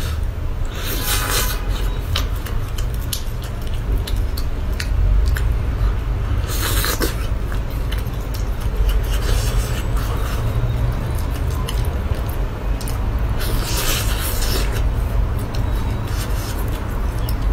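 Close-miked eating of cooked sea-snail meat: wet chewing and squishing with many small clicks, and three short hissy slurps about a second in, around seven seconds and near fourteen seconds. A steady low hum runs underneath.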